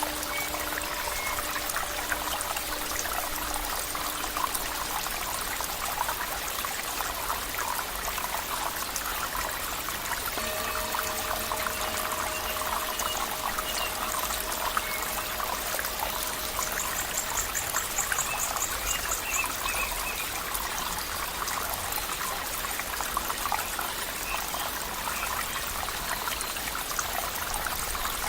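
Water flowing and trickling steadily, with a dense, even splashing like a small stream running over stones.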